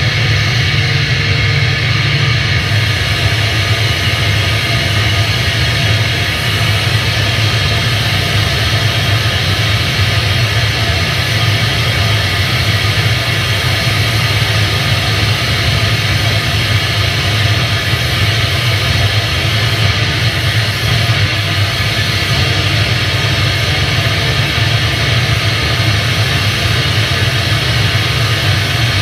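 Experimental noise performance: a dense, steady drone from an electric guitar played flat on the lap through effects pedals and amplifiers. A heavy low hum sits under a hiss of noise that reaches high up, with little change in level.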